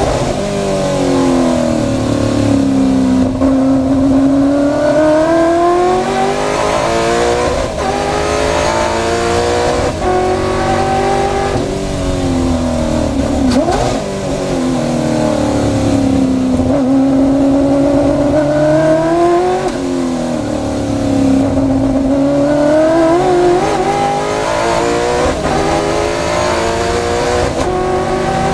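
Onboard sound of a racing car's engine, heard from the cockpit, with its note climbing again and again under acceleration and falling away under braking and lift-off through the corners.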